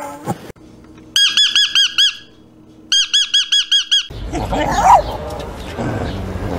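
A bird calling in rapid, evenly repeated arched chirps, about nine a second, in two runs separated by a short pause. Then a louder, rougher animal sound takes over with one sharp rising-and-falling cry.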